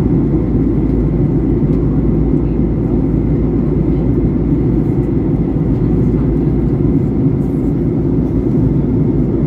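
Steady cabin roar of a Boeing 737-800 in flight at altitude: the rush of airflow and the CFM56-7B turbofans heard from a window seat over the wing. The noise is deep and unchanging, with a faint steady high tone above it.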